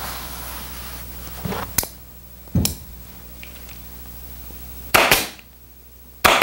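Pneumatic upholstery staple gun firing staples through the fabric cover into the chair frame: several sharp shots, single ones about two and three seconds in, then quick pairs about five and six seconds in.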